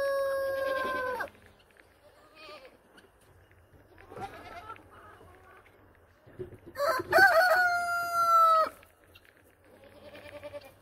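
A rooster crowing twice: the tail of one long crow ends about a second in, and a second crow of about two seconds comes near the middle, its last note held steady. Quieter clucking and goat calls fill the gaps.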